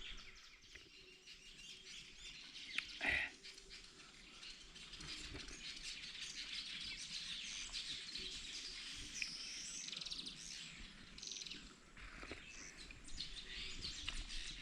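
Birds chirping and calling faintly in the background, with a short knock about three seconds in.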